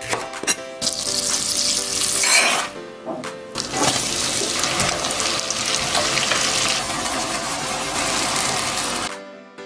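Sliced leeks, then bacon, sizzling in hot oil in a frying pan: a loud, steady sizzle with a short dip about three seconds in, cutting off suddenly near the end.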